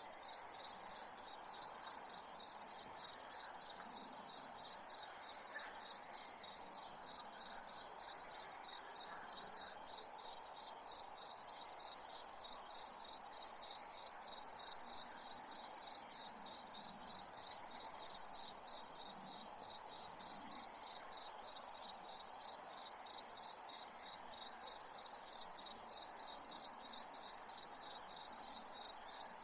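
Crickets chirping at night: a steady, high-pitched chirp repeating evenly at about three to four chirps a second, over a faint lower background hum.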